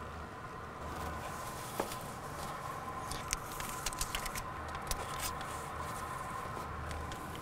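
Light clicks and taps of hands handling an urn, turning it over on its stand, most of them in the middle of the stretch. Under them runs a steady machine hum with a thin steady tone.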